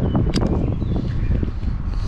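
Wind buffeting the microphone on a moving fishing boat, with water splashing against the hull and a sharp click about a third of a second in.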